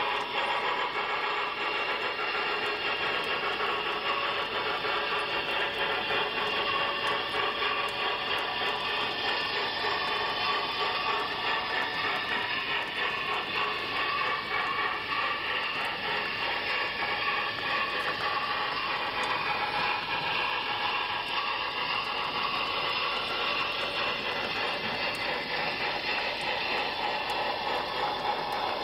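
HO-scale model passenger train running steadily on track: a continuous whirring, rattling rumble of small wheels and mechanism on the rails.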